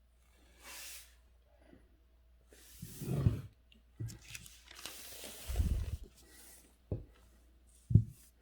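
Paper rustling and sliding during calligraphy work, in several swishes with soft thuds, then two short knocks near the end.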